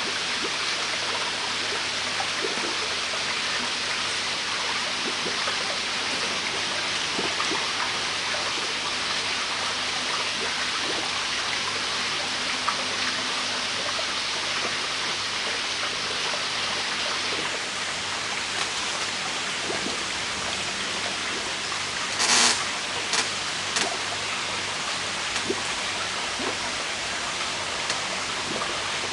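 Steady hiss of running water, with a few brief louder splashes or knocks about three-quarters of the way through.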